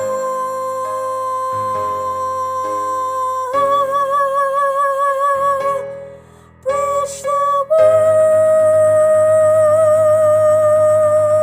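Soprano voice singing long held notes with vibrato over instrumental accompaniment, the final phrase of a choral anthem. It steps up to a wavering note, breaks off briefly, sings two short notes, then holds a long higher note from about eight seconds in.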